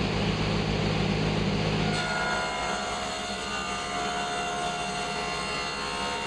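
Shop machinery running steadily: a dust collector and table saw. About two seconds in, the strong low hum abruptly gives way to a set of steady, higher whining tones.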